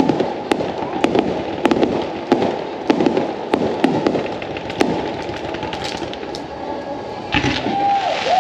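Aerial fireworks shells bursting overhead, a sharp bang every half second or so with crackling between them. A louder burst comes near the end, and a steady tone starts just after it, dipping once in pitch.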